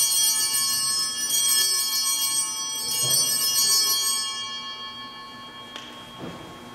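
Altar bells rung at the elevation of the host after the words of consecration. They ring out bright and sudden, then fade away over several seconds.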